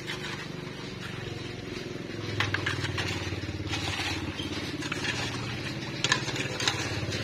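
A steady engine hum that grows louder about two seconds in, under scattered scrapes and knocks of hoes working sludge in a drainage ditch.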